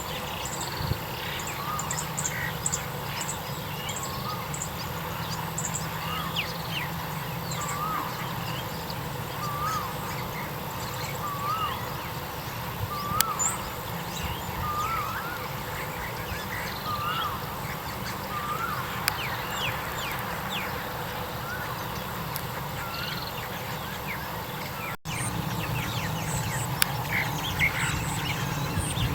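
A bird in a rice field calling a short, hooked note about once a second, over and over for some twenty seconds, with fainter chirps of other birds around it.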